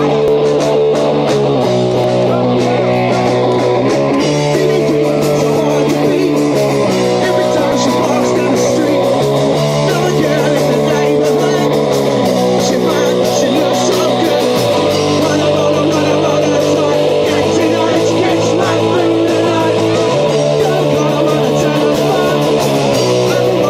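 Live rock band playing at full volume: electric guitar chords that change every couple of seconds over a steady drum beat.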